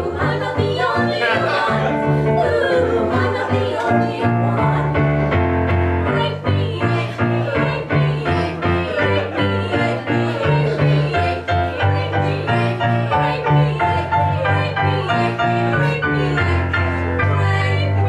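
Music: a band playing a lively tune over a pulsing bass line, with many quick melody notes above it.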